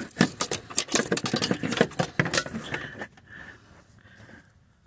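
Handling noise in a car's engine bay: a dense run of sharp clicks and scraping for about two and a half seconds, then softer scattered rustling.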